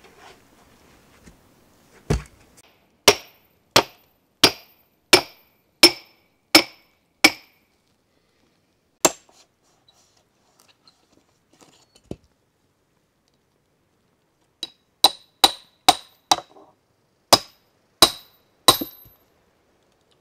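Steel splitting wedges being struck to split a section of cedar log: sharp, ringing metal-on-metal blows at a steady pace, a run of about eight, one more a little later, then another run of about eight near the end.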